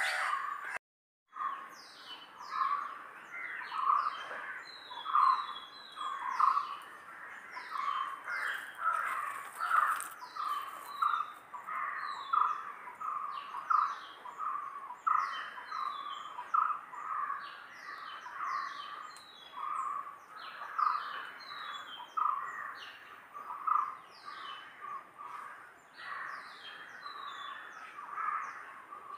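A chorus of birds: a dense run of repeated mid-pitched calls, with many short, high chirps sliding downward over them. There is a brief dropout to silence about a second in.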